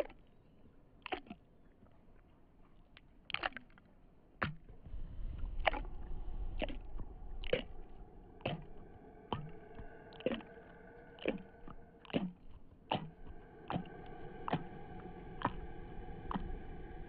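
Eerie horror-ambience soundtrack: repeated falling swoops about once a second over a steady layered drone, with a low rumble that comes in about four seconds in.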